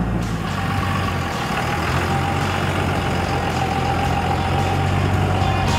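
Pickup truck with a camper crawling slowly over a rough, rocky dirt track, its engine running steadily at low revs.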